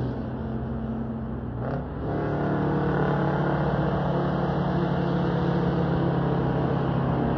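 Detroit Diesel 8V92 two-stroke V8 in a cab-over Kenworth truck pulling away under load. The engine note drops for a moment about two seconds in, as at a gear change, then comes back louder and runs on steadily.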